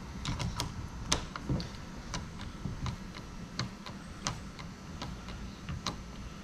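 Irregular light clicks and taps of small hardware being handled while fitting a kayak motor mount, over a steady low hum.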